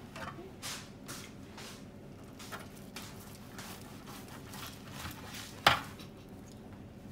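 Carving knife slicing through roast turkey: a run of faint, irregular cutting strokes, with one sharp knock about two-thirds of the way through.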